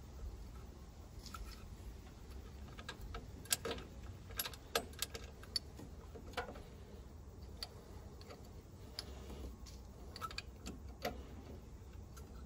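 Faint, irregular small clicks and taps of a Magnaspark II electronic distributor being worked by hand down into a VW 1600 engine's distributor bore and turned to engage its drive, with a cluster of sharper knocks about four to five seconds in and a few more near the end.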